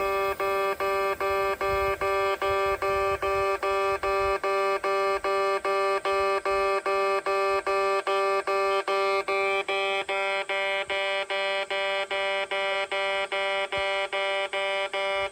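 Railway level-crossing warning alarm of the electronic 'pay-pay' type, repeating one steady pitched tone about three times a second. A low rumble runs under it for the first few seconds.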